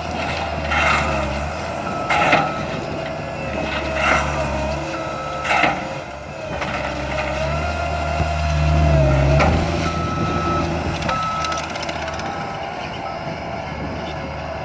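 Skid steer loader running and working a six-way dozer blade, its engine swelling under load partway through. Several sharp clanks come in the first six seconds, and a backup alarm beeps on and off.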